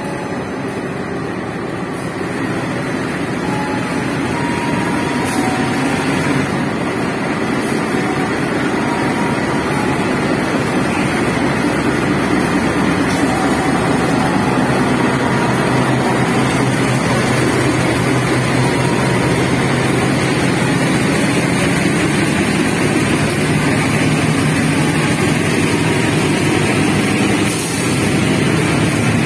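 Two coupled diesel locomotives pass slowly close by with their engines running, growing louder from about two seconds in, followed by passenger coaches rolling past on the rails.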